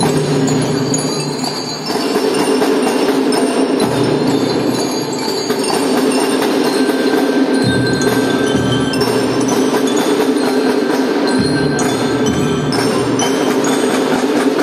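Kindergarten drum band playing a tune: glockenspiels (marching bell lyres) ring out the melody over marching drums, with bass drum beats coming in more strongly about halfway through.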